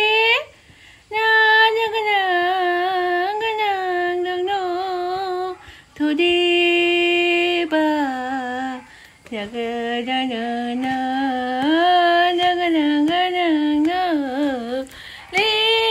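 A woman singing a slow melody with vibrato on long held notes, in phrases broken by short pauses for breath.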